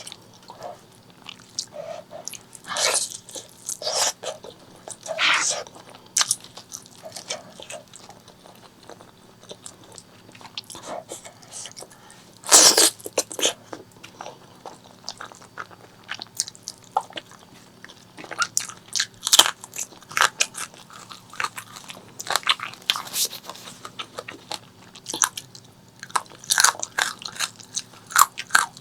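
Close-miked eating sounds: a person biting and chewing pork leg curry with rice, with wet mouth noises and crunchy bites coming irregularly. The loudest bite comes about 12 to 13 seconds in.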